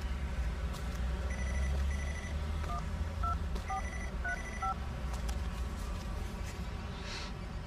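Mobile phone keypad tones as a number is dialled: about five short two-note beeps a few seconds in. Between them are repeated short double electronic rings.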